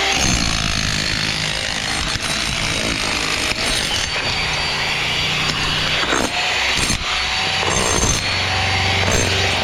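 Handheld power tool on a construction site, its motor winding down, then revving up and slowing again several times over a steady background of machine noise.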